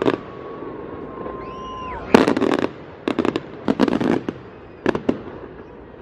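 Fireworks display going off: clusters of sharp cracks and crackling, with a rapid run of cracks about two seconds in and further volleys over the next three seconds.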